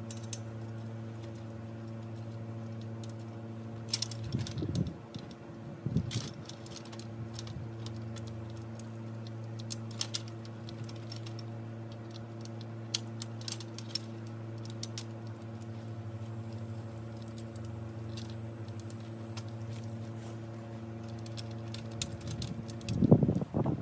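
Metal frame parts of an A-frame hunting blind clinking and rattling as they are handled and fitted together, with scattered clicks and a louder cluster of knocks near the end. A steady low hum runs underneath.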